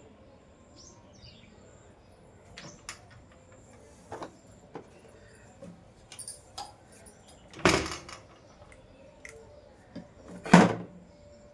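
Handling noises from work on the fan's capacitor wiring: scattered light clicks and knocks, with two louder brief clatters, one near the middle and one near the end. Faint bird chirps in the background.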